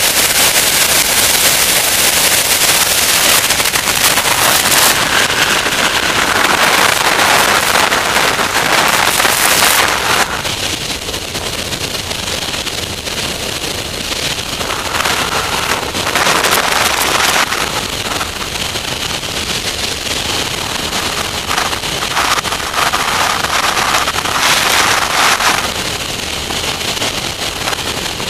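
Avid light aircraft in flight, heard as a loud rush of airflow buffeting the wing-mounted camera's microphone. The rush drops noticeably about ten seconds in, then swells again in short bursts.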